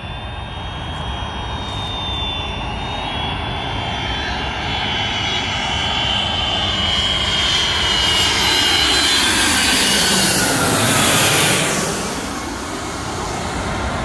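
Jet airliner on landing approach passing low overhead: engine noise and a high turbine whine build steadily, peak about eleven seconds in, then fall away as the pitch drops.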